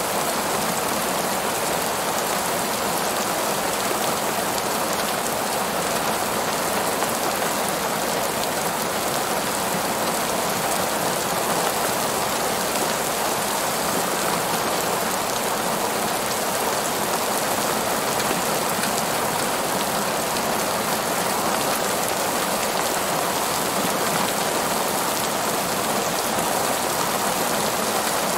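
Heavy rain falling on parking-lot pavement: a steady, unbroken spatter of drops.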